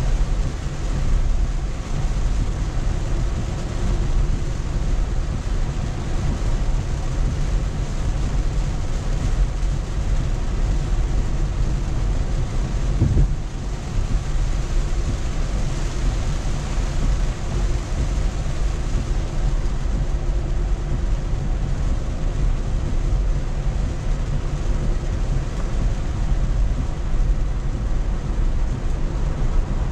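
Steady in-cabin road noise of a Tesla electric car travelling on a wet road in heavy rain: a continuous low rumble of tyres and spray with a hiss of rain on the car, and one brief tick about halfway through.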